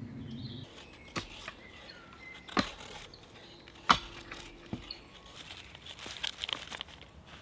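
A knife blade striking and splitting dry kindling on a wooden chopping stump: a few sharp wooden knocks about a second and a half apart, the loudest around four seconds in. Near the end comes a light crinkly rustling of dry wood shavings and feather sticks being laid in a fire pit.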